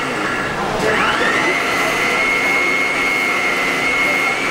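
Lords Hotel King 1400-watt mixer grinder running at full speed, grinding whole unroasted spices to powder in its stainless steel jar. It gives a steady high whine that dips about half a second in and climbs back up within the next second, then holds steady.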